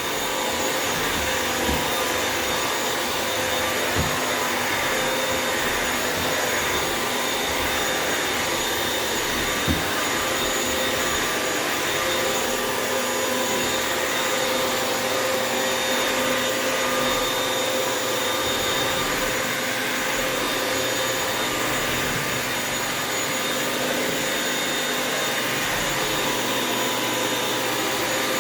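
Bissell vacuum mop running steadily as it is pushed over the floor, a continuous motor whine over the brush and suction noise, with a couple of faint knocks.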